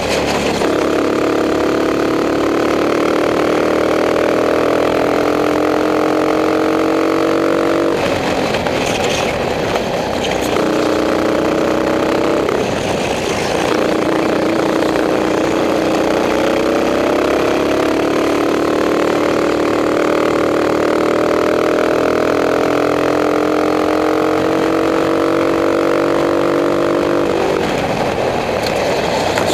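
Racing kart engine heard onboard at close range, its revs climbing steadily in long pulls and dropping off three times as the driver lifts for corners, then climbing again.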